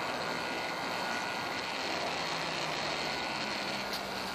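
K'nex machine's small electric motor and plastic gear train running, a steady mechanical noise with a few faint steady tones.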